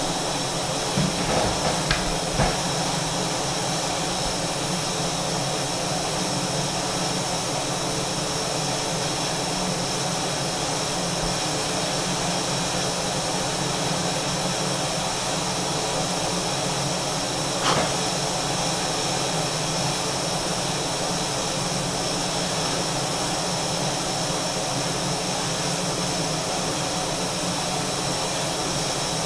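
Steady, loud rushing hiss of a kitchen appliance running while food cooks on low heat, with a few soft knocks in the first couple of seconds and a single sharp tick about eighteen seconds in.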